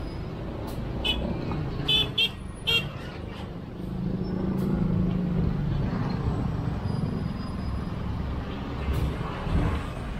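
A motor vehicle running with a low rumble that grows louder about four seconds in, and several short, high chirps between one and three seconds in.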